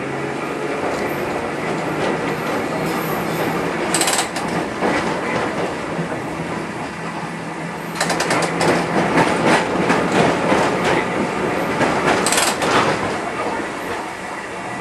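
Preserved Rotterdam museum tram running, heard from inside the car: a steady running noise with a low motor hum and the wheels clattering over rail joints. There is a short clatter about four seconds in and a longer run of clicks and knocks from about eight seconds, easing off near the end.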